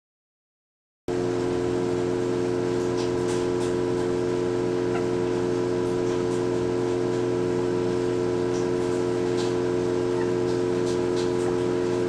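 Bipolar stepper motor driven by a Pololu Tic T500 controller at one constant speed, giving a steady hum of several tones that starts about a second in.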